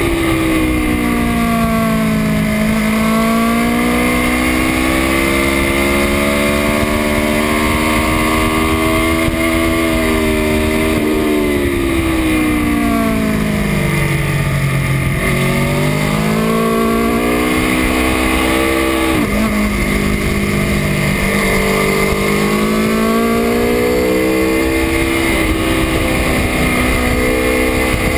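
Aprilia Tuono V4 motorcycle engine at race pace, its pitch climbing under acceleration and falling away under braking into corners, deepest about halfway through, over a steady rush of wind noise.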